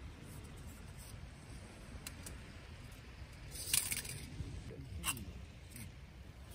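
Steady low rumble with handling noise: a short scrape about three and a half seconds in and a sharp click about five seconds in.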